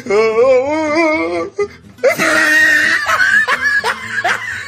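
A voice holding a wavering, sung note, then a shrill cry about two seconds in, followed by quick repeated laughs.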